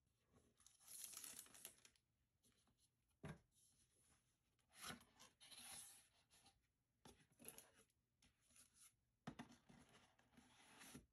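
Faint tearing and crinkling of plastic shrink-wrap being pulled off a cardboard product box, in uneven bursts. Two sharp knocks come as the cardboard lid and flaps are opened.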